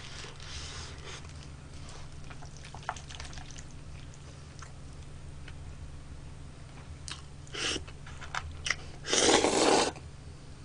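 Close-up chewing of a mouthful of rice ball, with a few short clicks later on, then a loud slurp of spicy chewy jjolmyeon noodles near the end.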